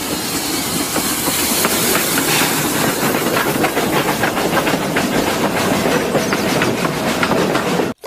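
Steam locomotive running along the track, with steam hissing and the wheels clicking over the rail joints; the sound cuts off abruptly at the end.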